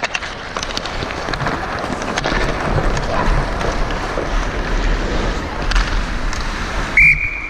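Ice hockey play: skates scraping the ice and sticks clacking, with wind rushing on the referee's body-worn camera microphone. About seven seconds in, a referee's whistle starts a loud, steady, shrill blast, stopping play.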